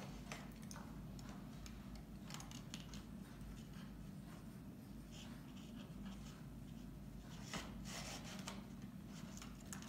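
Faint rustling and light scattered clicks of a satin ribbon being threaded and tied on a small card gift box, over a low steady room hum.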